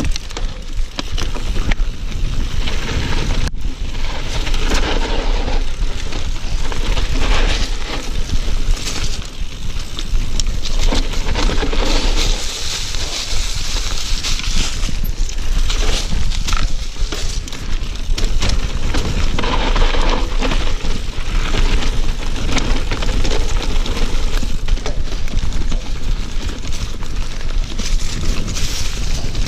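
Yeti SB6c mountain bike descending a dirt trail: knobby tyres rolling and crunching over dirt, stones and dry leaves, with the chain and frame rattling over bumps. Wind buffets the microphone with a constant deep rumble.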